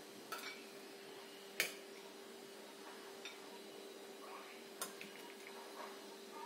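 A few sharp, separate clinks of a steel spoon against a steel bowl and a plate as food is scooped out and served, the loudest about one and a half seconds in, over a faint steady hum.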